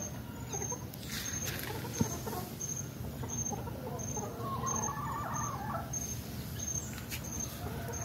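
Quiet outdoor background with faint bird calls in the middle.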